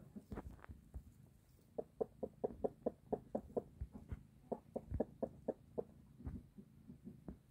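Brooding hen clucking softly: a quick, even run of short low clucks, about four or five a second, starting about two seconds in and thinning out later.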